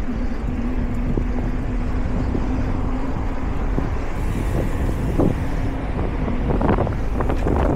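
Wind rumbling on the microphone, with a faint steady hum in the first few seconds and a run of short clicks and rattles near the end.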